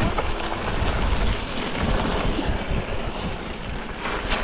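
Wind rumbling on the microphone over the steady crunch and hiss of an e-bike's fat tyres rolling across wet gravel and puddles.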